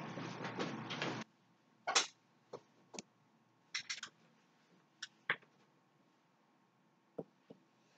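Scuffling and clothing rustle for about a second, cutting off suddenly, then a scattered series of light knocks and taps on a tabletop.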